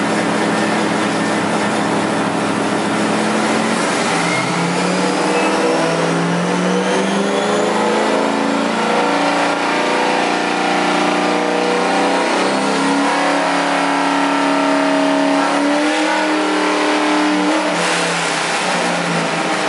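LS V8 in a BMW E46 drift car running on a chassis dyno: it holds a steady speed for a few seconds, then climbs in pitch in several steps while a high whine rises with it, and the pitch falls away near the end.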